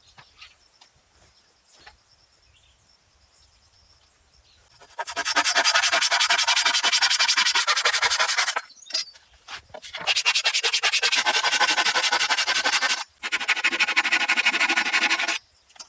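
A hand tool scraping through wood in rapid, rasping strokes. It starts about five seconds in and runs in three stretches, with short breaks between them.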